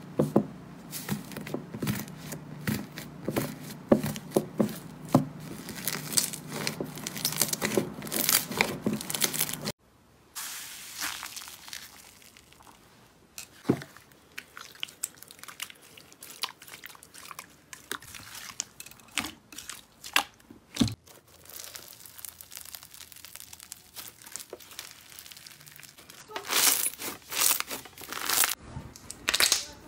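Crackling and crunching as fingers press into iceberg slime and break its dried crust, dense for about ten seconds and stopping suddenly. Then quieter, sparse sticky pops as glossy slime is stretched, and near the end louder crunching as bead-filled slime is squeezed.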